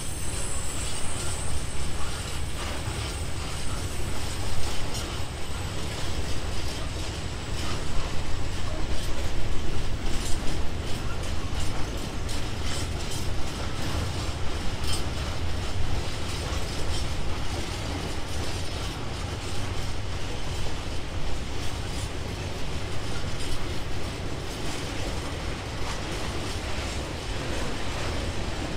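Open coal wagons of a freight train rolling past at steady speed: continuous low wheel rumble with frequent clanks and rattles from the wagons and wheels over the rail joints.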